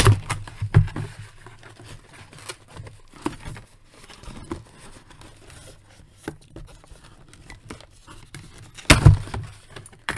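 Toy packaging being handled: clear plastic ties being cut and pulled free from a cardboard box, giving scattered clicks, scrapes and rustles. Heavier knocks of the box come right at the start and about nine seconds in, the second being the loudest.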